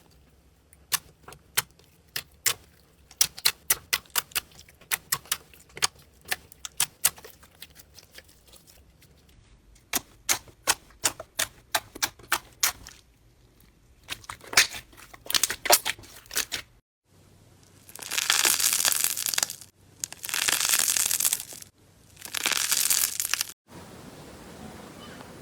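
Slime being handled by hand: a long run of sharp pops and clicks, then, after a cut, three longer crackling squishes of about a second and a half each.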